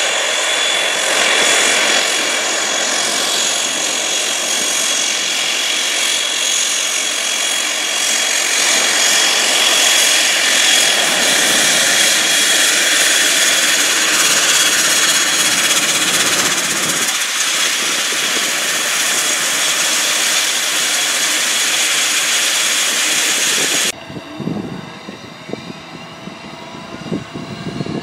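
Embraer 120 Brasilia's twin Pratt & Whitney PW118-series turboprop engines running while the aircraft taxis, a steady loud turbine whine over propeller noise. About 24 s in the sound cuts off abruptly to a much quieter background with a few faint knocks.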